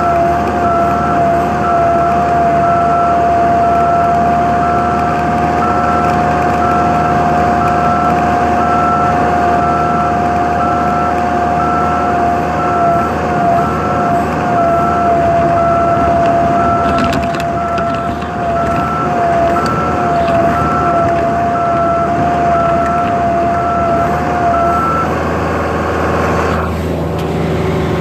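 A heavy machine's engine runs steadily under a steady whine, with an evenly repeating beep over it. Near the end the beeping and whine stop and the engine revs down.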